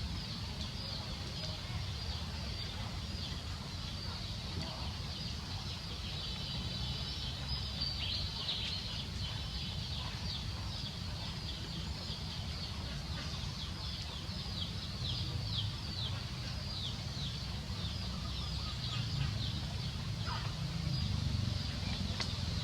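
Outdoor animal calls: many short, high chirps sweeping downward in quick succession, densest in the middle stretch, over a steady low rumble.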